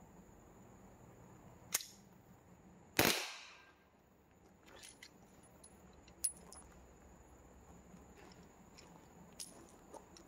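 A suppressed Glock 17 Gen 4 9mm pistol fires a single shot about three seconds in: a sharp crack that fades over about half a second. A sharp click comes a second before it, and a few faint clicks of handling follow.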